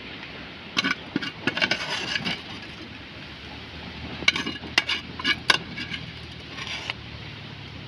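A metal ladle clinking and scraping against metal cooking pots, in short irregular knocks that come in clusters, over a faint steady low hum.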